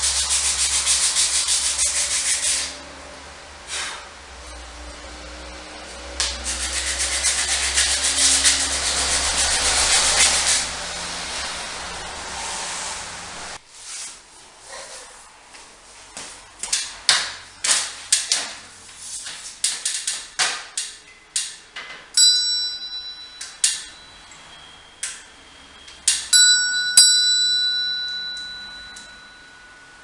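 Hand sanding of a small wooden piece in long rubbing strokes, then after a pause a few knocks and clicks of fitting work, and an old brass Victorian spring doorbell struck twice, each ring fading away over a few seconds.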